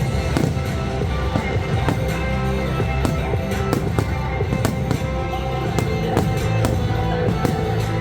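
Pyromusical fireworks show: music plays steadily while fireworks go off over it in many sharp bangs and crackles.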